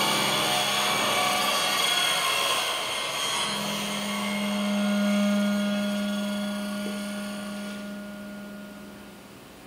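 Electronic music from modular synthesizers: a dense, noisy texture gives way about three seconds in to a steady low drone with thin higher tones above it. The drone fades away near the end.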